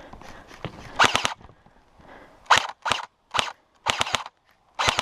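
Airsoft electric guns firing in about six short bursts of rapid shots, the first about a second in and the rest following close together, with brief gaps between bursts.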